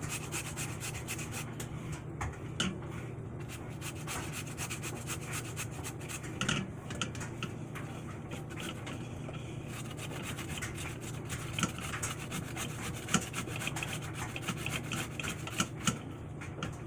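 Raw peeled potatoes being grated on the large holes of a metal box grater: a continuous run of quick rasping strokes.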